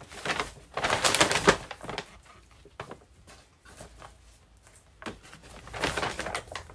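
Rustling as clothes are folded and a paper carrier bag is handled, in two loud bursts: one about a second in and another near the end.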